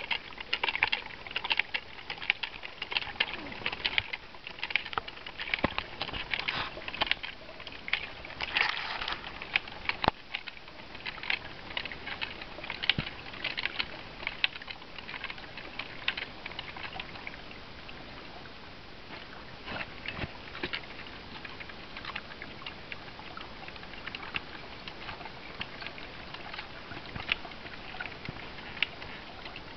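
MSR MiniWorks EX hand-pump water filter being pumped steadily, each stroke of the handle giving a short click, about one to two strokes a second, over a faint steady rush of water. The strokes grow fainter about halfway through.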